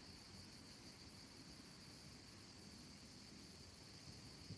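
Faint, steady high-pitched insect chorus over quiet outdoor background, with one small low thump near the end.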